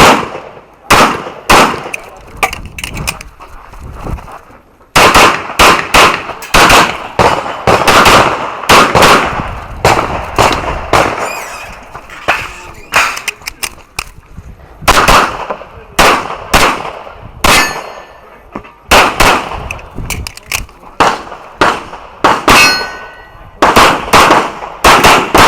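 Handgun shots fired in rapid strings during a practical shooting stage, with several short pauses between strings.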